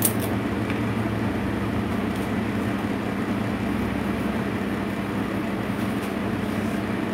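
Steady low hum under an even rushing background noise, with no distinct events.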